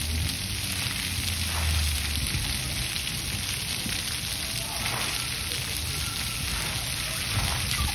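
Splash pad water jets spraying and splattering onto wet concrete: a steady hiss of falling water.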